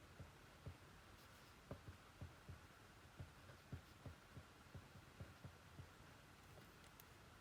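Near silence: faint room tone with a steady hum and soft, irregular low thumps every half second or so.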